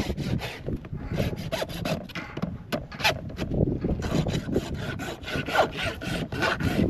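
Farrier's rasp scraping a horse's hoof in quick, even back-and-forth strokes while the horse is being shod.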